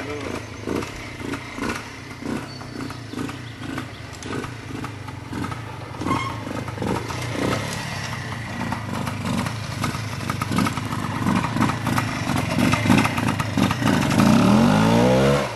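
Vintage trials motorcycle engine pulling at low revs in short throttle bursts. It grows louder later on and revs up with a sharply rising pitch near the end.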